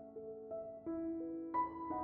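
Soft background music: slow, held piano-like notes, a new one every half second or so, the strongest about a second and a half in.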